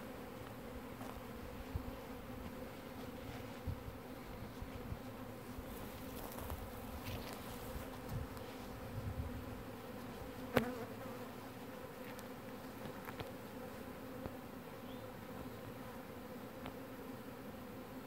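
A swarm of Russian honey bees buzzing in a steady hum, with one sharp knock about ten and a half seconds in.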